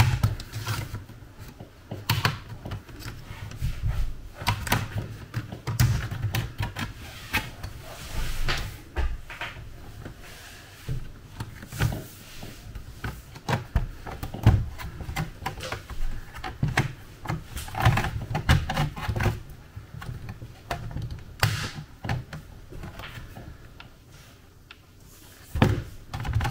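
Irregular clicks, snaps and light knocks as the bottom case of an HP Pavilion 14 laptop is pried loose with a plastic pry tool, its retaining clips letting go one by one, with occasional dull thumps from the laptop being handled on the work mat.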